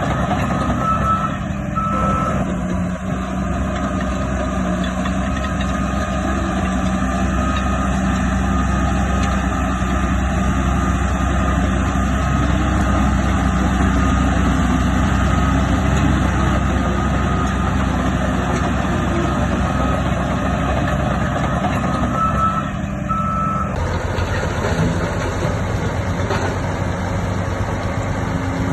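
A reverse alarm on heavy earthmoving equipment beeps repeatedly over a steadily running heavy diesel engine. The engine note shifts about 24 seconds in.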